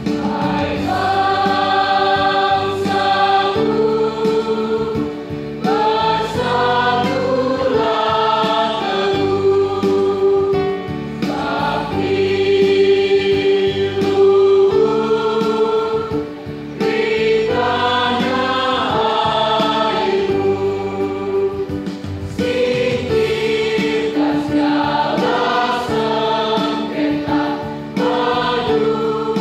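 A large high-school choir singing together in several voice parts, in long sustained phrases with brief breaths between them.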